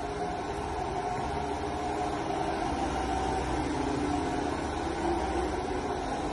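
A steady mechanical hum with hiss, even throughout.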